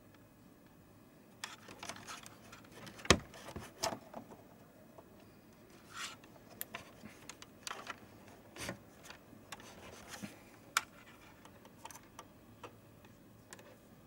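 Scattered, irregular clicks and light knocks of small hard objects being handled, with one sharper knock about three seconds in.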